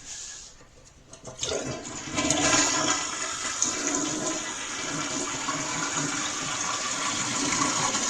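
Toilet flushing: a few clicks about a second in, then a steady rush of water as the 3.5-gallon tank drains into the bowl.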